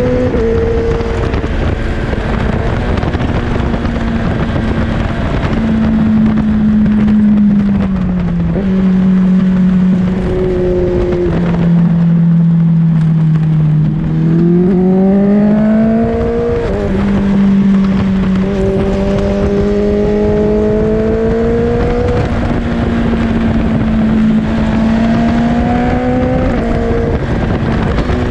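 A litre-class sport bike engine running at road speed through its gears. The note holds steady, steps down and sags to its lowest about halfway through, then climbs quickly and steps again with gear changes, over a steady rush of wind on the microphone.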